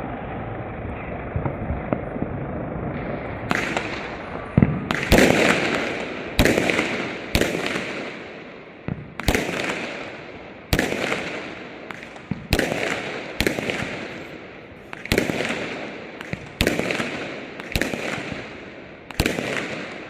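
Aerial fireworks display: a dense steady crackle for the first few seconds, then from about three and a half seconds in, shells bursting with sharp bangs roughly once a second, each bang trailing off in crackling.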